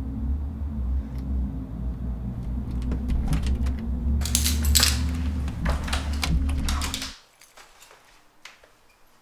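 Keys rattling and clicking at a door lock as the front door is unlocked, over a low steady hum that cuts off abruptly about seven seconds in.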